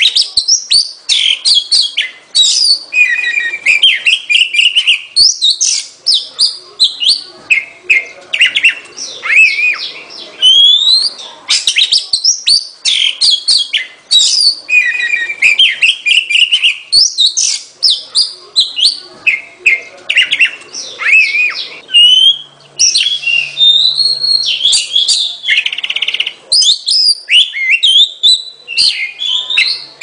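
Oriental magpie-robin singing: a rapid, varied stream of clear whistles, slurred rising and falling notes and chirps, with barely a pause.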